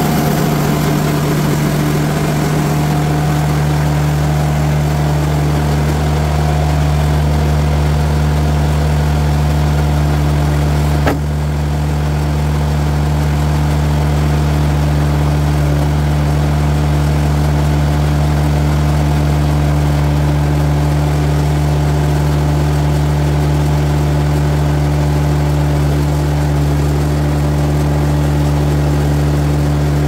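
TimberKing 2020 bandsaw sawmill's engine running steadily at constant speed as the saw head travels back along the bed after a cut. A single brief click comes about eleven seconds in.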